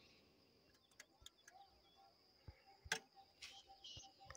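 Near silence: a faint steady high hum of field insects, with a faint run of quick repeated chirps from about halfway and scattered faint clicks, the sharpest about three seconds in.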